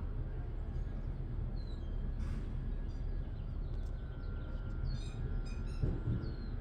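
Steady low background rumble with scattered short, high bird chirps, a small cluster of them about five seconds in.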